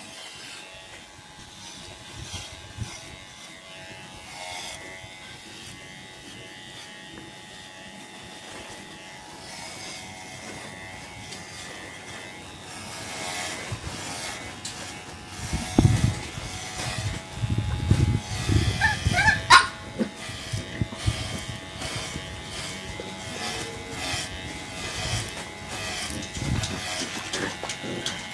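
Electric dog hair clippers humming steadily while trimming a dog's long fur. From about halfway there is louder irregular handling noise, and a brief rising squeak a little past the middle.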